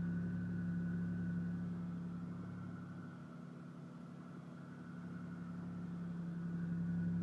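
1992 Chevrolet Cavalier Z24's 3.1-litre V6 idling steadily just after a cold start in deep cold. The sound fades a little around the middle and comes back up near the end.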